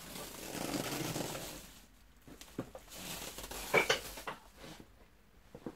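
Handling noises from a Hoover Enigma Evo upright vacuum cleaner's plastic body as it is stood up and moved: a rustling swell over the first two seconds, then a few sharp plastic clicks and knocks, the loudest about four seconds in.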